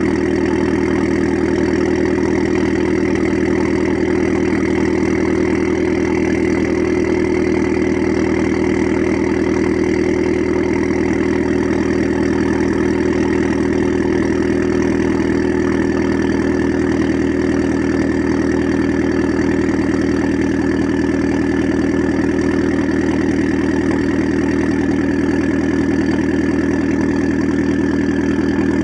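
Modified Alfa Romeo MiTo engine and exhaust idling steadily shortly after a cold start, with a faint higher whine that slowly drifts lower in pitch.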